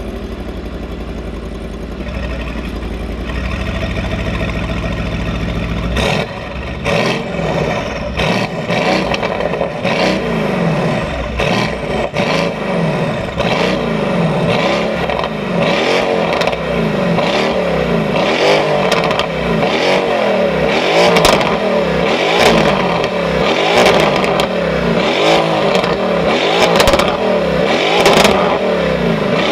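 Mercedes-AMG GT R Pro's twin-turbo V8, breathing through an aftermarket FI exhaust, running at a steady idle for about six seconds. It is then revved over and over in quick blips, rising and falling about once a second, with sharp exhaust pops and crackles among them.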